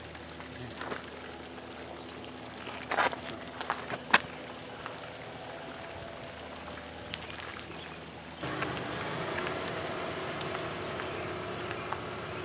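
Quiet outdoor background with a few light scuffs and taps. From about eight seconds in, a car engine runs steadily as a Honda CR-V rolls slowly into a garage.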